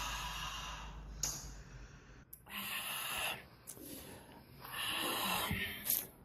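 A person breathing noisily in long, hissing breaths, three of them with short pauses between, made loud on purpose as an annoying mouth-and-nose noise.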